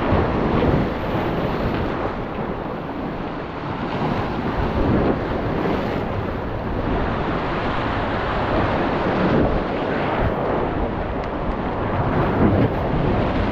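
Wind buffeting the microphone over ocean waves surging and splashing against the jetty rocks, a steady rushing noise.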